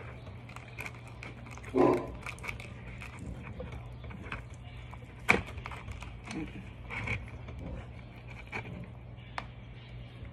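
Close-up eating noises: chewing and lip smacks while fingers pick apart fried fish, with scattered light clicks and rustles from the takeout container. There is a brief louder mouth sound about two seconds in and a sharp click a little past five seconds.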